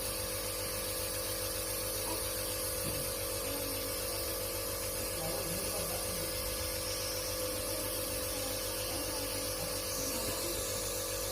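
Compressor nebulizer running with a steady electric motor hum, delivering a steam treatment for a baby's cough.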